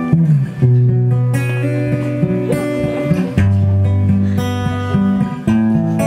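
Solo acoustic guitar played fingerstyle: a plucked melody over sustained bass notes, the bass changing about half a second in, again past the midpoint and once more near the end.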